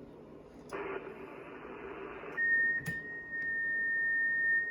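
Amateur radio transceiver on 6 metres: receiver hiss comes up about a second in. About two and a half seconds in it cuts off and gives way to a steady high FT8 tone that carries on, with a brief click just after.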